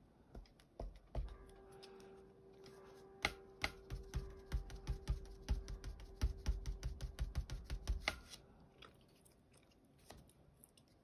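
Foam ink blending dauber dabbing ink through a plastic stencil onto paper: quick, irregular taps, several a second, that stop about eight seconds in. A steady hum runs under the tapping.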